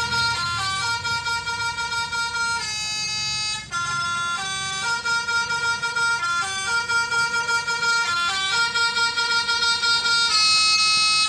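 Telolet basuri horn playing its multi-note tune: held, horn-like notes stepping up and down in pitch, the tune repeating over and over.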